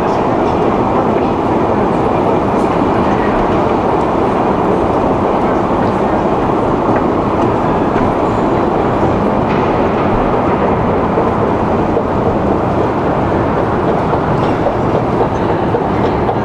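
Moscow Metro machinery running with a steady, unbroken rumble.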